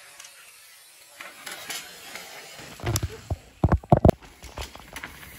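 Downhill mountain bike coming through over rough, rooty ground: a quick cluster of sharp clattering knocks about three to four seconds in, after a quiet start.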